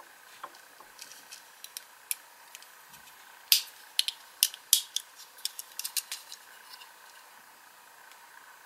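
Sharp little clicks and taps of fingernails and fingers on a small die-cast metal toy car, a Tomica Toyota 86, as its door is pried open. There are a few scattered ticks at first, then a quick cluster of louder clicks in the middle that tails off.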